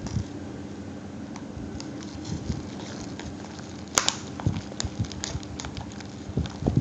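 Stick stirring a sticky, half-set glue-and-detergent slime in a plastic cup: irregular soft clicks and scrapes, with one sharper click about four seconds in. The slime is still sticking to the cup as it thickens.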